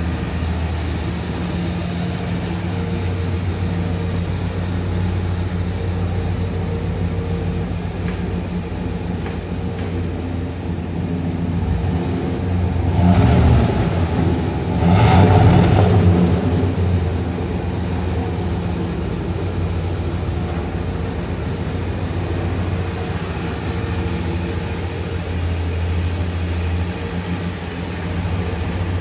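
1996 Ford F-250 XLT heavy-duty pickup's engine idling steadily, growing louder twice about halfway through.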